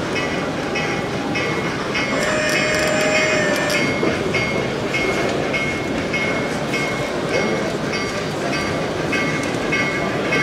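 Model train running on a layout, with a regular clicking about twice a second over a steady background hubbub of voices; a steady tone is held for about two seconds near the start.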